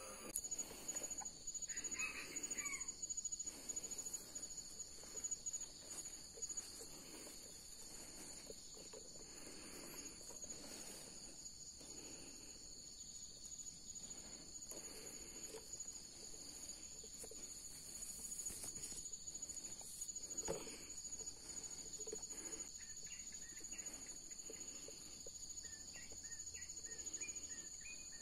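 Steady high-pitched drone of insects in forest undergrowth, two even tones held throughout. Soft rustling comes and goes over it, a brief chirping call sounds about two seconds in and again near the end, and there is one sharp click about twenty seconds in.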